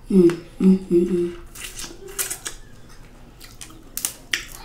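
A woman's three short closed-mouth "mmm" sounds of enjoyment while eating, then sharp cracks and snaps of snow crab leg shell being broken apart by hand, the loudest crack near the end.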